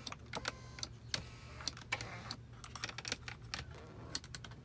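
Volvo XC90 electric power seat motor running as the seat adjusts, a steady low drone with scattered clicks and ticks, the seat being worked from its newly swapped control switch.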